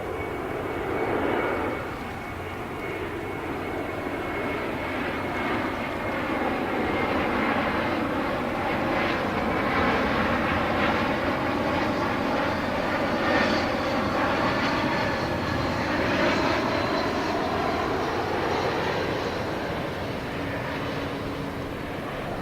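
Jet airliner's engines as it passes by: a continuous rushing jet noise with a faint high whine, swelling towards the middle and easing off near the end.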